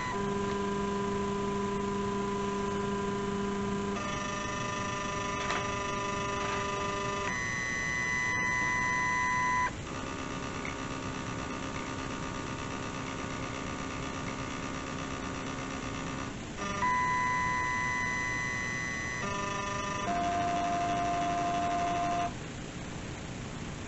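Shapeoko XXL CNC stepper motors whining as the gantry moves the bit through a probing routine against an aluminium touch-probe block. The steady pitched tones change to a new pitch every few seconds as the motion changes, and stop about twenty-two seconds in.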